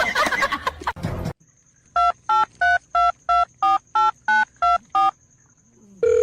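A phone number being keyed in on a touch-tone keypad: ten short two-note dialing beeps, about three a second. A steady tone starts near the end.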